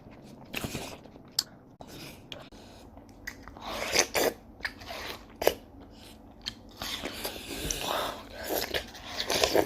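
A person biting and chewing watermelon: irregular crunchy bites and chewing.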